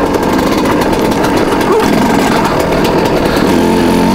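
Two-stroke dirt bike engine running steadily as the bike rides along a snowy trail.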